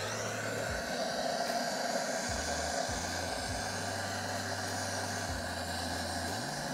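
Handheld butane canister torch hissing steadily as it lights firewood in the firebox of a kazan stove. Background music with a stepping bass line plays underneath.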